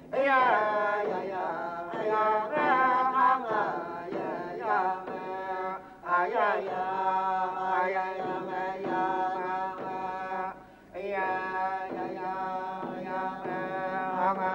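Music of wordless, chant-like singing voices, with sliding swoops in pitch near the start and about six seconds in, and a brief break just before eleven seconds.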